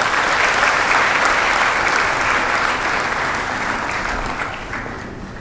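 An audience in an auditorium applauding, a steady spread of clapping that tapers off over the last second or so.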